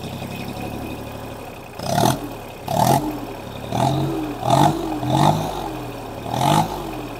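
Diesel tractor engine idling, then revved in a series of short blips, roughly one a second, each rising and falling in pitch. It is heard close to the upright exhaust stack.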